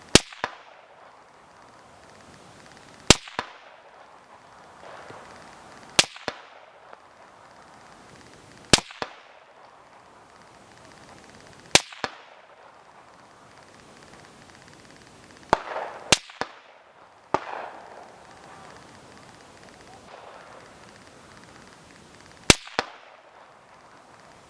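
Seven sharp rifle shots, about three seconds apart at first and then with longer gaps. Each is followed a split second later by a quieter second crack.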